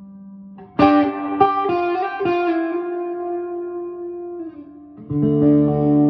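Electric guitar played through a Princeton Reverb clone tube amp with its reverb set at 4: a quick run of picked notes about a second in that ring out and fade, then a new chord struck near the end.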